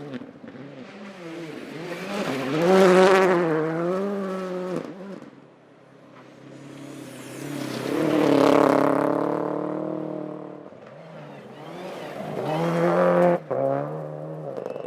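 Rally car engines revving hard through the gears, the engine note climbing and dropping with each shift, swelling loud three times: about three, eight and thirteen seconds in. Around the middle peak a hiss of gravel under the tyres joins the engine.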